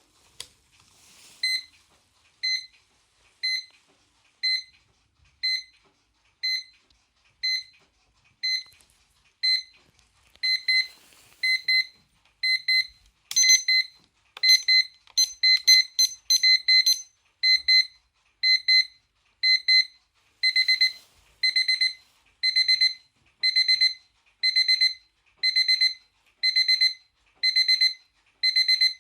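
Electronic alarm of a Cainz radio-controlled square alarm clock: high-pitched beeps about once a second that step up into pairs and then quick clusters of beeps each second, getting louder as the alarm escalates. A few sharp clicks come near the start and about halfway through.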